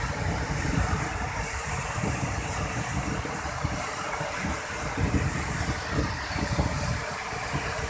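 Floodwater overflowing a dam's spillway gates in several cascades. It makes a steady, loud rush of water over a deep, churning rumble.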